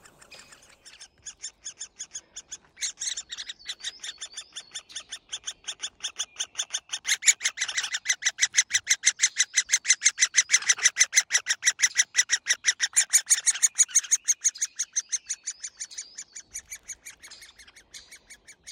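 Great spotted woodpecker nestlings calling from inside their tree-hole nest: a rapid, unbroken chatter of short calls, several a second, swelling to loudest midway and fading toward the end. These are the begging calls of chicks waiting to be fed.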